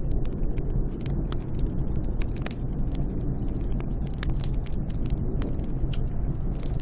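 Snowstorm wind ambience: a steady low rumble of wind with many irregular, sharp crackles and ticks scattered throughout.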